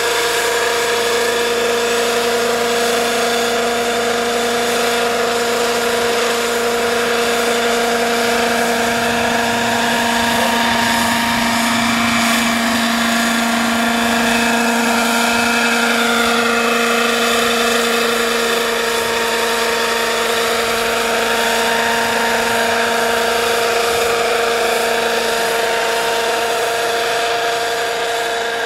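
Radio-controlled scale Eurocopter EC-120B model helicopter flying, its engine and rotors running at a steady pitch. A higher tone bends down as it passes by about halfway through.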